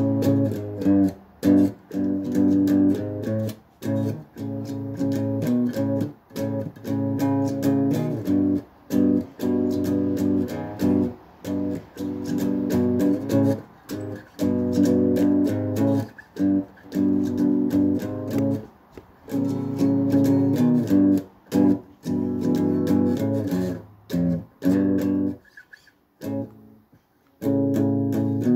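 Guitar in standard tuning played in one-finger barre chords: rhythmic strummed chords, many of them cut off short, with a brief pause a few seconds before the end.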